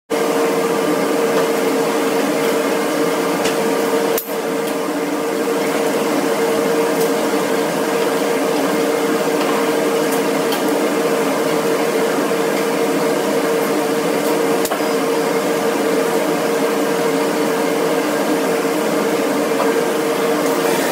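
Steady whirring hum of running woodworking machinery, idling rather than cutting, with one strong steady mid-pitched tone. There is a brief dip about four seconds in and a few faint clicks.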